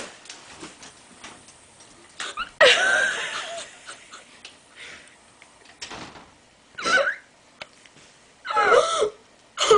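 A woman crying with emotion: breathy, wheezing sobs that break into short, high-pitched crying cries, the longest about three seconds in and shorter ones near seven and nine seconds.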